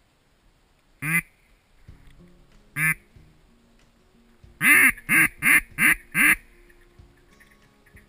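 Loud duck quacks: a single quack about a second in and another near three seconds, then a quick run of five quacks, the first the longest.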